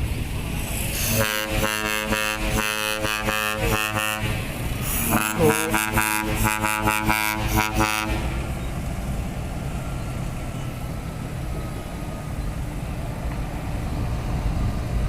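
Mitsubishi Fuso The Great truck's trumpet air horns playing a tune in two bursts of about three seconds each, the notes changing quickly. Then only a steady low rumble.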